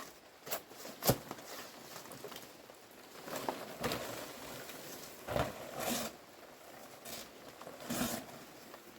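Irregular knocks and clatter, the sharpest a single knock about a second in, with a few more spread through the rest.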